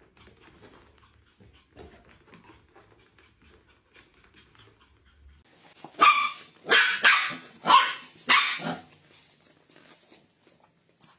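A dog barking, about five loud barks in quick succession a little past halfway through, after faint scattered clicks.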